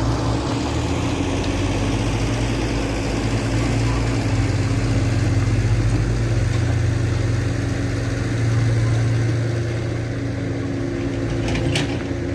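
Vehicle engine running steadily at idle, a low even hum that swells slightly a few times, with a couple of faint clicks near the end.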